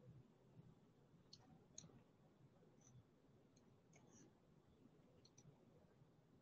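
Near silence with a handful of faint, scattered clicks, some in quick pairs.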